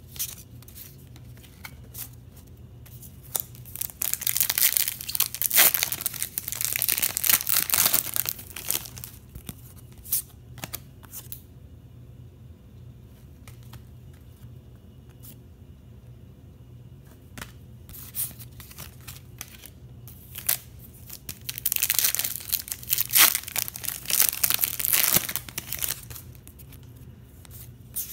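Foil trading-card packs being torn open, their wrappers crinkling, in two bursts of a few seconds each, about fifteen seconds apart. Between them come the light clicks and slides of cards being flicked through by hand.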